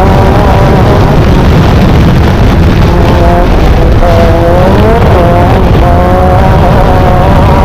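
Off-road race vehicle's engine running hard, heard loud from onboard over heavy rumble and buffeting. The engine pitch wavers, dropping briefly about three and a half seconds in and climbing again around five seconds.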